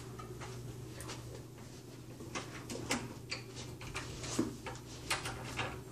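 Scattered light knocks and clicks over a steady low hum, the knocks mostly in the second half.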